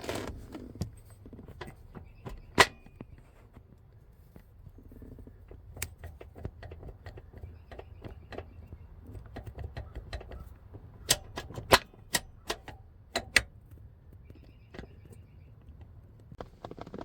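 Irregular sharp clicks and clinks of hand tools and parts being handled and rummaged through, with one louder knock about two and a half seconds in and a run of louder clicks from about eleven to thirteen seconds in.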